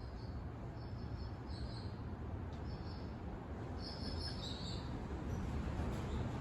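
Steady rushing noise of wind outdoors, with short high bird chirps about once a second and a brief flurry of them a little past the middle.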